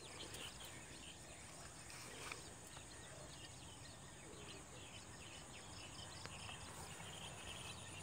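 Faint rural outdoor ambience: small birds chirping now and then over a steady high-pitched insect drone.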